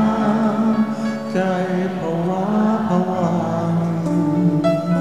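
An elderly male singer singing into a handheld microphone, backed by a live band.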